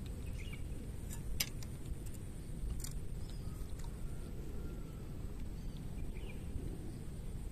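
Outdoor riverbank ambience: a steady low rumble with a thin, steady high-pitched tone over it, a few faint bird chirps, and two sharp clicks about one and a half and three seconds in.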